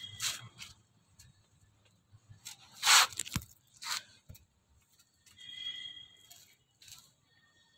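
Two short scraping, rustling noises, the first and louder about three seconds in and the second a second later, then a faint high chirping shortly before six seconds.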